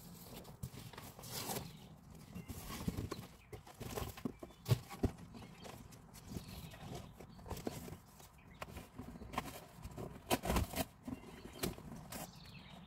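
Cardboard boxes being handled: irregular knocks, scrapes and rustles of cardboard, with a few sharper thumps, the loudest about five seconds in and again near ten and a half seconds, as boxes are pulled out and tossed down on the grass.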